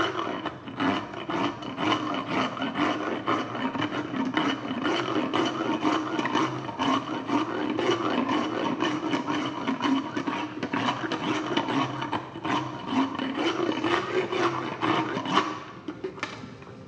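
Equine dental hand float (file) rasping across a horse's lower cheek teeth in short, even pull strokes, about three a second, filing down sharp enamel points. The strokes stop near the end.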